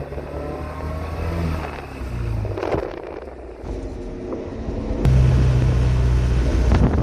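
Car engine running as the car is driven on a rough road. The engine note eases off around the middle, then comes back louder and steady about five seconds in as the car accelerates. Two short knocks come along the way.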